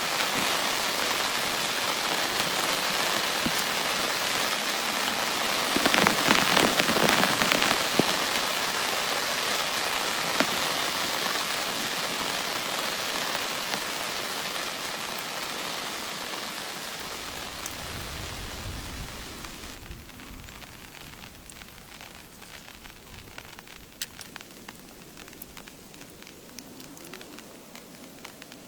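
Heavy rain falling and pattering on a surface, heaviest about six to eight seconds in. It then eases off and thins to a lighter patter with scattered single drops. There is a brief low rumble about eighteen seconds in.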